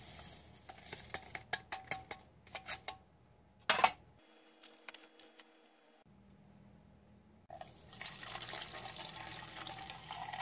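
Tea powder trickling from a foil ration packet into a steel canteen cup, the packet crinkling, with a sharp knock a little under four seconds in. From about seven and a half seconds, water pours steadily into the cup.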